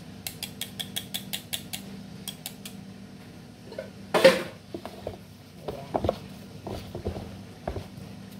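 Kitchen mixing sounds: a run of quick metallic clicks from a wire whisk being shaken and tapped over a plastic basin of batter, a loud clatter about four seconds in, then a wooden spoon stirring thick batter with irregular knocks and scrapes against the plastic basin.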